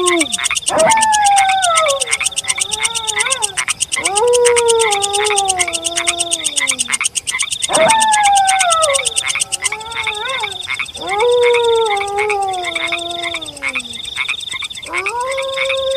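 A wolf howling, five long howls about three and a half seconds apart, each rising sharply and then sliding slowly down in pitch. Underneath runs a steady night chorus of fast, high-pitched chirping.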